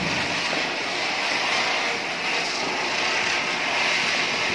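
Ground firework spraying sparks, giving a steady rushing hiss.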